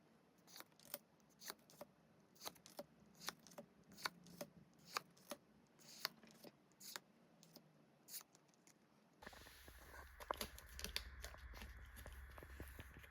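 Crisp clicks and snips of Pokémon card packs and cards being handled, about two a second. Near the end a louder steady hum comes in under more small rustles and clicks.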